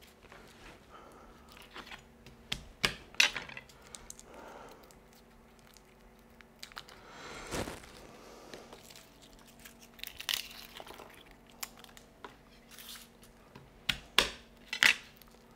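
Papery skins being peeled and pulled off crushed garlic cloves by hand, with soft crinkling and light taps of cloves on the cutting board. A few sharper knocks come near the end.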